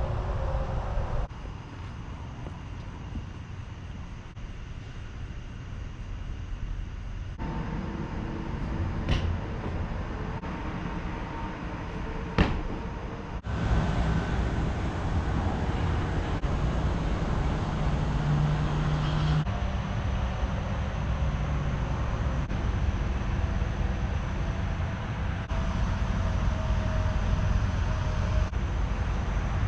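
Low, steady vehicle rumble heard across several short clips that cut in and out abruptly, with a single sharp click about twelve seconds in.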